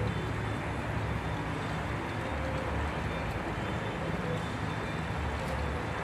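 Steady outdoor background noise with an uneven low rumble, such as wind on the microphone or distant traffic.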